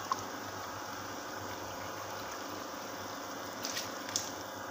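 A pot of water at a rolling boil, bubbling steadily. Near the end, rice is poured in from a bowl with a few brief splashes.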